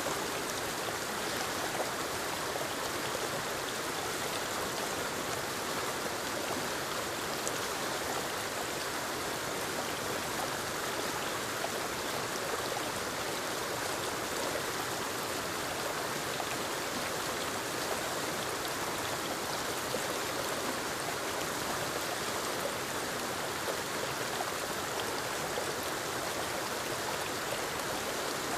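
Forest waterfall cascading over rocks into a stream, a steady rushing of water with no pauses.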